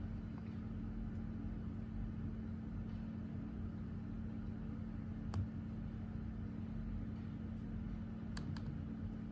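Faint taps and clicks of a finger working an iPhone: one about five seconds in and two close together near the end, over a steady low hum.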